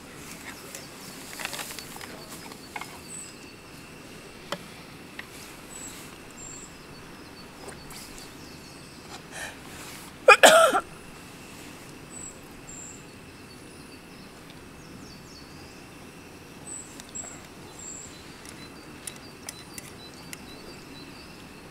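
Quiet outdoor ambience with faint high bird chirps and light clicks of chopsticks and tableware; about ten seconds in, a person sneezes once, loudly.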